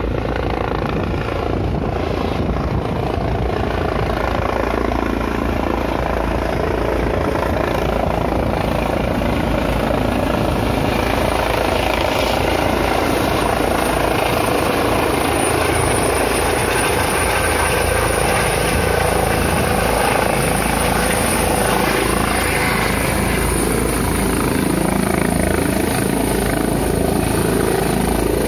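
Light turbine helicopter with a shrouded fenestron tail rotor coming in to land, hovering low and setting down on the pad: loud, steady rotor and engine noise. A high turbine whine comes in about halfway through as it nears the ground.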